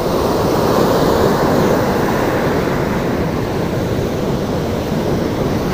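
Gentle ocean surf breaking and washing up a beach: a steady, even rushing of small waves.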